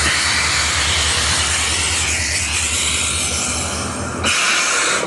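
A recording played loud through a JBL portable Bluetooth speaker: a steady rushing noise with a low hum under it. The hum drops out a little after four seconds, and the sound stops near the end.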